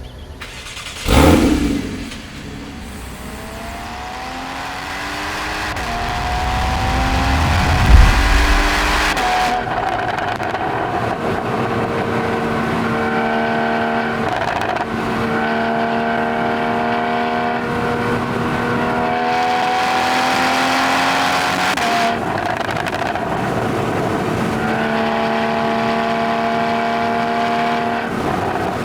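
Porsche 981 Boxster GTS flat-six engine under way: the revs climb for several seconds, break at a gear change, then the engine holds mostly steady revs with a few further shifts. A loud, brief falling whoosh sounds about a second in.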